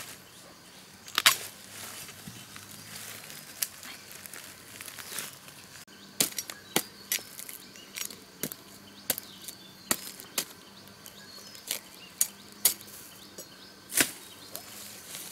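Sharp chopping strikes at irregular intervals, a few spaced out at first and then about two a second from around six seconds in, the loudest about a second in and another near the end.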